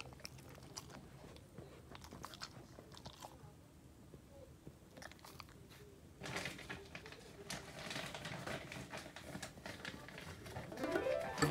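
American Cocker Spaniel chewing a hand-fed treat, with sharp crunching clicks in the first few seconds. From about six seconds in a denser rustling sound follows, and a short rising tone begins near the end.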